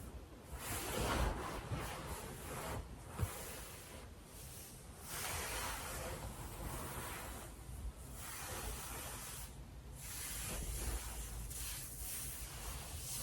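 Stockinged legs rubbing and swishing against bedding, in strokes of a second or two with brief pauses between them.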